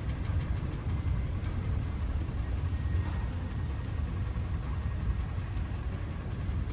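Car engine idling, a steady low rumble, heard from inside the car.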